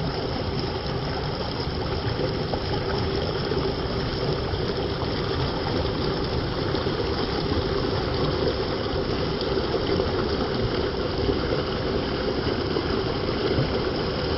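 Stream water rushing steadily, a constant even wash of sound.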